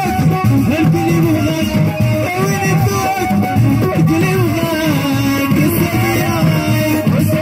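Moroccan chaabi music played live: a violin held upright on the knee plays a sliding, sustained melody over a steady drum rhythm.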